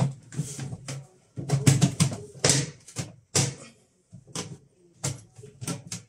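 Plastic clicks and knocks from an LG washing machine door frame and its glass bowl as the parts are pressed and snapped together: a run of sharp, irregular taps with short pauses between them.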